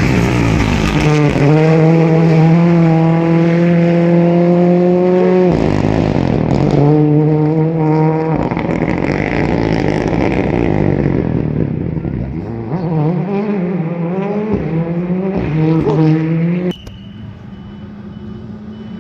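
Rally car engine at high revs, its pitch climbing and then dropping sharply with each quick gear change, several times over. The sound cuts off abruptly near the end, leaving much quieter background.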